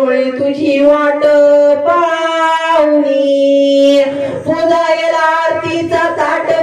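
Marathi gondhal devotional singing: a high voice sings over held, sustained instrumental notes that shift in pitch every second or two.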